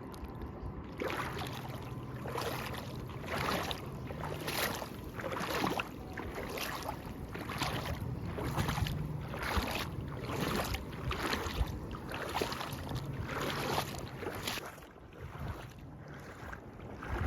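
Footsteps wading through shallow seawater, a splash with each step at a steady walking pace, with wind on the microphone.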